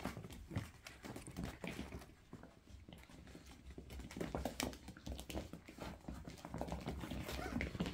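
Toy poodle puppies' claws clicking and pattering on a tiled floor as they move about, in short irregular taps.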